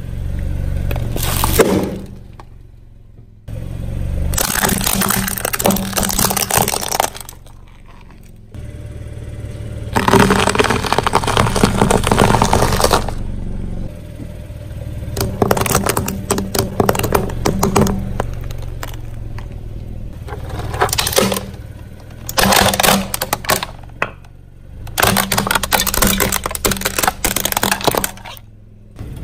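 Car tyre rolling onto plastic toys one after another and crushing them: runs of cracking, crunching and scraping as the plastic breaks, each run cut off abruptly before the next, with a car engine running low underneath.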